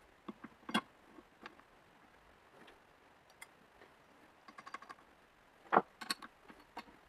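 Scattered metal clicks and clinks as a clamp is set on the steel drill press table and its bolt tightened with an open-end wrench. There is a quick run of small ticks a bit past halfway and a sharp knock near the end.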